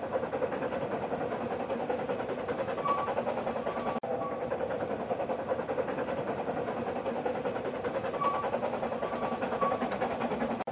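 Narrow-gauge steam locomotive hauling a passenger train, running steadily with its exhaust and the wheels on the rails. A few short faint squeals are heard, and the sound cuts out for an instant about four seconds in.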